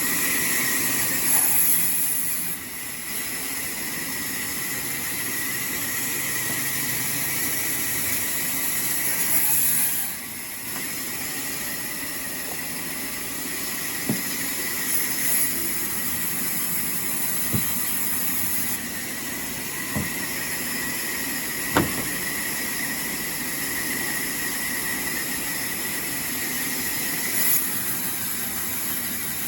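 Sawmill machinery running steadily, a high hiss and whine with a constant tone, easing briefly twice in the first ten seconds. A few short knocks come in the middle stretch.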